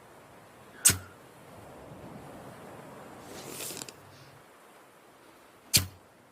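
Crossbow shooting twice, about five seconds apart: each shot is a sharp snap with a low thud. A scraping rustle comes in between.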